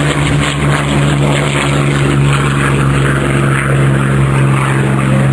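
Rolls-Royce Merlin V12 piston engines of a Second World War fighter pair, a Hawker Hurricane and a Supermarine Spitfire, running at take-off power. It is a loud, steady propeller drone with little change in pitch.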